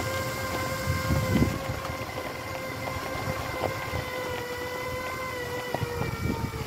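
Electric drive motors of a Magic Mobility Extreme X8 four-wheel-drive power wheelchair whining steadily as it drives over gravel, with the tyres rumbling underneath. The low rumble swells briefly about a second in, and the whine drops slightly in pitch near the end.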